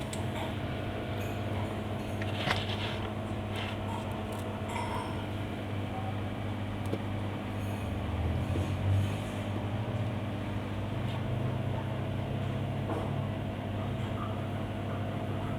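A steady low hum of several even tones, with a few faint clicks and taps over it.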